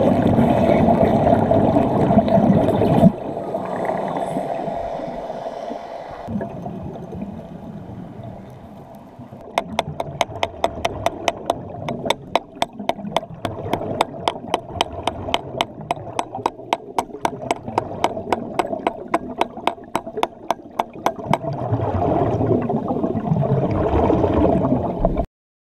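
Underwater wet welding on a steel sheet pile: the arc crackles with gurgling bubbles for about three seconds and stops suddenly. The underwater sound continues with gurgling, a long run of evenly spaced sharp clicks about four a second, then loud bubbling again near the end before cutting off.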